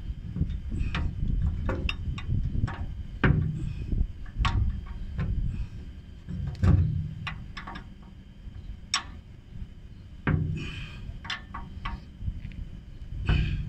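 Metal clinks and taps of a hand wrench working on the brake fittings under a truck with an air-assisted brake system, coming irregularly, several in quick succession at times, over a low rumble of handling noise. A brief rasp about ten and a half seconds in.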